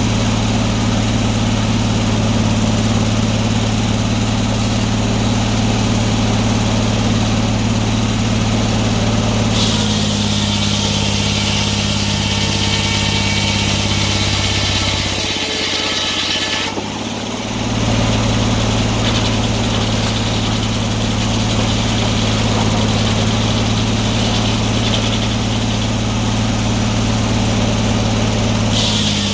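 An antique sawmill's engine running steadily. From about ten seconds in to about seventeen seconds a saw cut adds a loud rushing noise while the engine note drops slightly under load, then the engine settles back.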